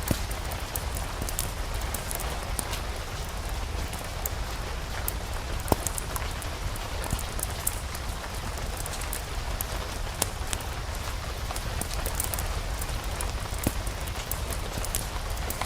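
Steady rain mixed with a crackling fireplace fire: an even hiss over a low rumble, with scattered sharp clicks and a few louder pops.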